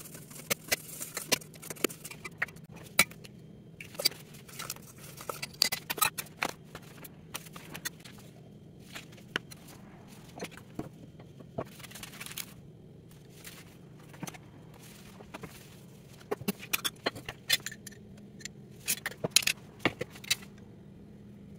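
A spoon clinking, tapping and scraping against a stainless steel bowl and a glass bowl as ingredients are mixed by hand: irregular sharp clicks with soft scraping between, over a faint steady hum.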